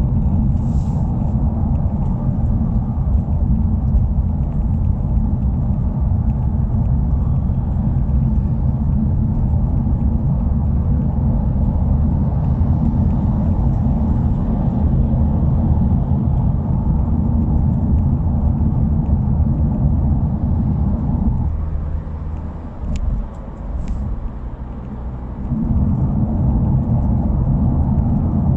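Subaru WRX's flat-four engine and exhaust running with a steady low drone while driving, its muffler free of the abnormal noise it had. About three-quarters of the way through the drone eases off for a few seconds, with two faint clicks, then picks up again.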